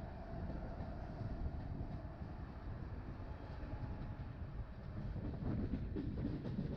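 LHB passenger coaches of an Indian Railways express running along the track, a steady low rumble.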